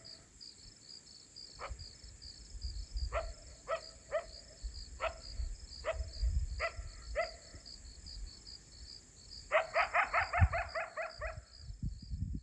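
Crickets trilling steadily, with short high yelps from a canine: single yelps every second or so, then a quick run of about ten near the end.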